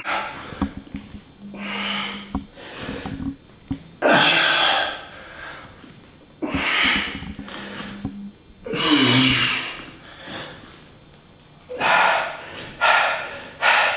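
A man's forceful, hissing exhales and grunts, one with each scoop-and-push push-up rep, about every two seconds; some come with a low voiced groan, one falling in pitch near the middle. Faint clicks fall between them.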